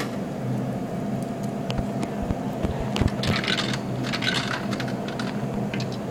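Coins clinking and rattling as they are fed into a vending machine, in a few short clusters, over a steady low hum.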